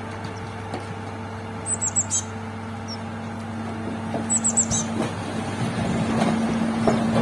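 A heavy tipper truck's diesel engine runs steadily as the dump body is tipped up. Loose rock starts to slide and clatter out of the back from about five seconds in. Birds chirp twice, each time a quick run of four or five short falling notes.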